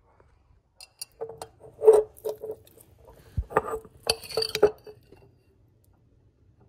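Metal spoon clinking and scraping against a glass jar while scooping out stiff sea moss gel: a string of clinks with the glass ringing, which stops about five seconds in.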